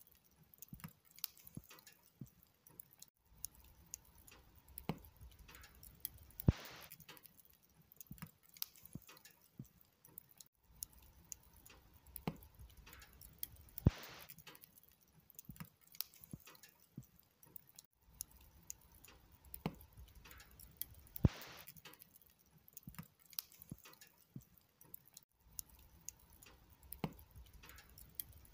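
Log fire burning on a bed of glowing embers, crackling softly with many small irregular pops and three sharp, louder snaps.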